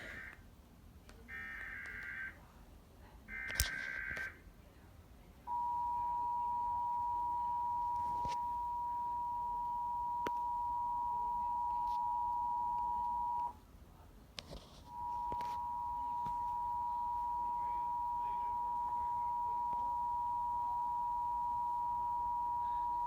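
Emergency Alert System test tones from a TV broadcast: three short bursts of the buzzy SAME data header, then the two-tone attention signal (853 and 960 Hz together), held steady for about eight seconds, breaking off briefly and resuming for about eight seconds more.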